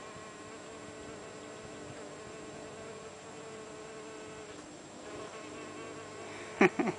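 Mason bees (Osmia) buzzing in flight around their nesting tubes: a steady hum that drifts slightly in pitch, with a short, much louder burst near the end.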